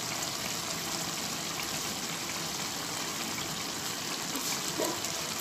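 Radish and spinach cooking in a pot, a steady sizzling and bubbling of the cooking liquid.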